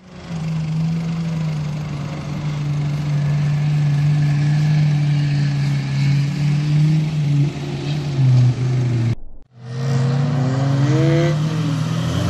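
SUV engine pulling hard at steady high revs through soft dune sand. After a short break about nine seconds in, an engine revs up again in a few rising sweeps.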